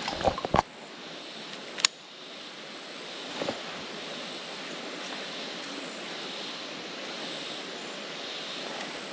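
Handling of a fishing rod and baitcasting reel: a few knocks at the start and one sharp click about two seconds in. A steady outdoor hiss runs under it.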